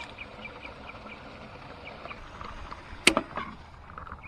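Faint short chirping notes repeating several times a second, then a single sharp knock about three seconds in, followed by a couple of lighter knocks.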